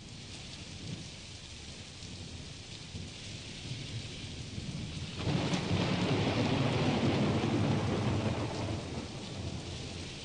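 Steady rain falling, with a long roll of thunder that swells about five seconds in and slowly dies away.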